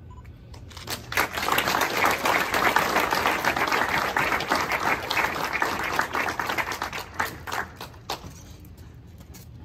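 Audience applauding, starting about a second in and dying away into a few scattered claps near the end.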